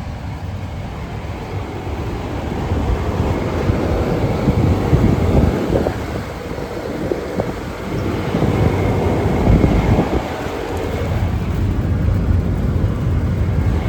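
Carrier Gemini commercial condensing unit running: a steady fan rush over a low hum, getting louder over the first few seconds, with gusts of air buffeting the microphone.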